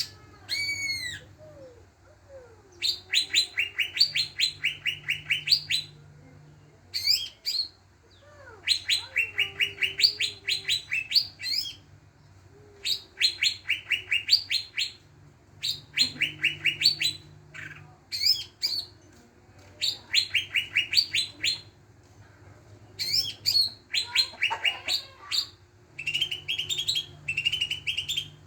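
Green leafbird (cucak ijo) singing: repeated phrases of quick, evenly spaced chirps, each phrase lasting two to three seconds with short pauses between. It is a lure song used to get untrained cucak ijo to sing.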